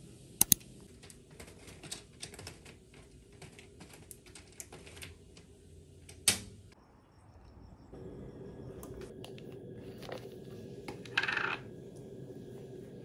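Irregular light clicks and taps for the first several seconds, with one sharper knock a little past the middle. Then a steady low hum takes over, with a brief hiss a few seconds later.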